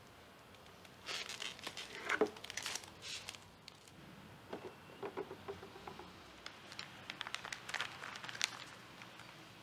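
Packaging being handled: soft wrapping rustling and crinkling in a first spell, a few light knocks of the cardboard box around the middle, then a clear plastic bag crinkling in the hand near the end.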